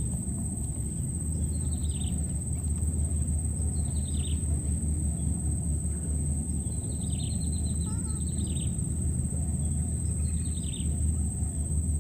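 Outdoor pond-side ambience: a steady high-pitched whine and short, falling chirping calls every one to three seconds over a constant low rumble.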